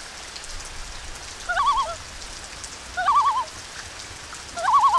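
Three short warbling calls, each about half a second long and about a second and a half apart, over a steady hiss.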